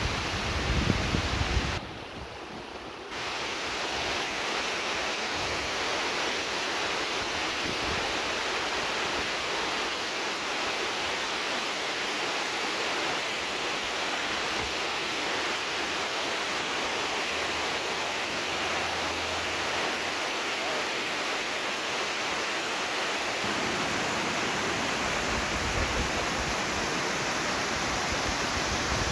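Steady, continuous rush of flowing water, dipping briefly about two seconds in.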